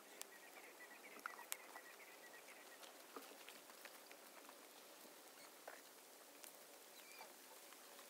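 Smouldering pile of weeds and vines crackling faintly, with scattered small pops and ticks, a couple of louder ones about a second and a half in.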